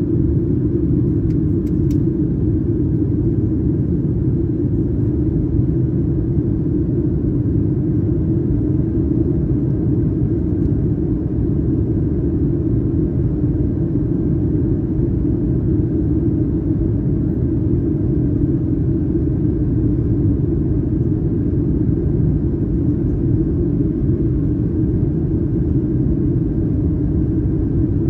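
Steady low roar of a Boeing 737-900ER's CFM56 jet engines and airflow heard inside the passenger cabin, unchanging throughout.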